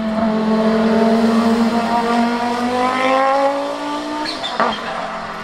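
The Audi 90 Quattro IMSA GTO's 2.2-litre turbocharged five-cylinder engine accelerating hard past and away, its pitch rising for about four seconds. Near the end it breaks off with a sharp crack and a short high turbo chirp, then runs on at a lower pitch.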